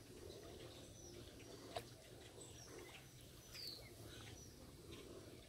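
Near-silent outdoor ambience with a few faint, short bird chirps and one sharp click nearly two seconds in.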